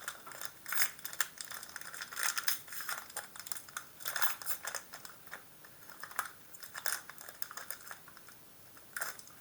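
Pokémon trading cards being handled: a dense, irregular run of light clicks, taps and rustles.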